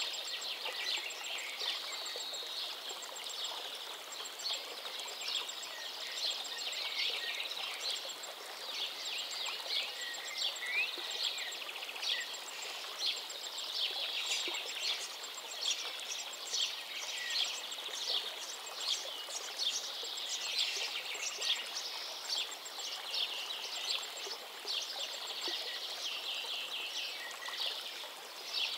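A chorus of small birds chirping and singing continuously, with many quick overlapping calls, over a soft steady hiss.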